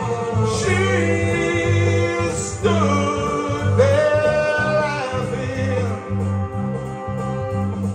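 A man singing into a microphone over a karaoke backing track played through a PA speaker, holding long notes with vibrato over a steady bass beat.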